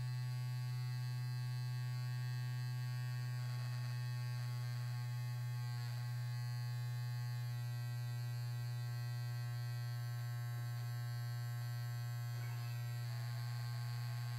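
Amabrush automatic toothbrush mouthpiece vibrating in the mouth: a steady, low electric hum with overtones.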